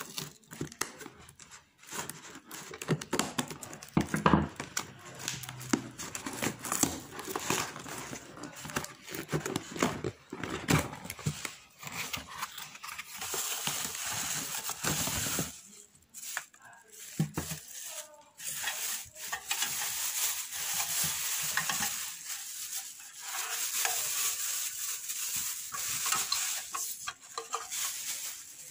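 Cardboard box and plastic wrapping rustling and crinkling as an acrylic desk organizer is unpacked by hand, with many small knocks and clicks of handling in the first part and a steadier crinkling of plastic wrap in the second.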